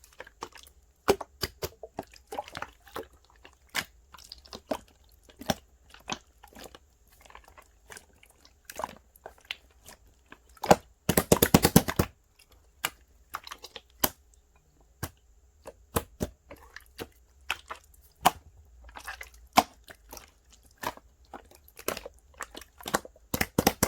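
Clear slime being pressed and squished by hand, giving irregular sharp clicking pops from trapped air, with a quick rattling run of pops about eleven seconds in.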